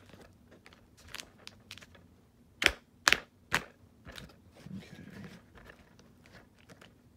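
Cardboard packaging being worked open: scattered light clicks and rustles, with three sharp snaps close together a little under three seconds in.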